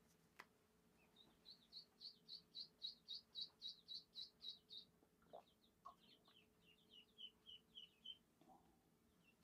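Faint bird song: a run of about a dozen quick, high chirps at three or four a second, then a second, slightly lower run of chirps a little over halfway through.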